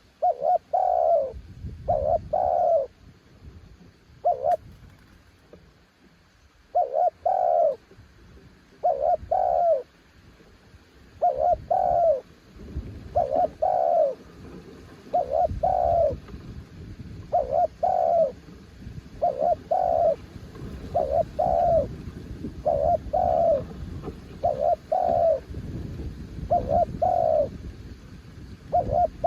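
Spotted dove cooing: short coo phrases, often in close pairs, repeated about every one to two seconds. Low wind rumble on the microphone underneath.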